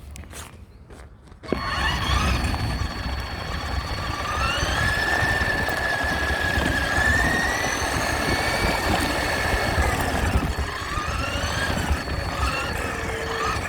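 Radio-controlled truck's motor starting up suddenly about a second and a half in, then running with a whine whose pitch rises and falls as the truck speeds up and slows down.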